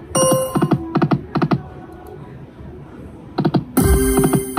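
Light & Wonder Quick Hit Explosion video slot machine's game sounds: a quick run of clicks as the reels stop one after another, with brief electronic tones. Near the end a louder electronic burst as the next spin starts.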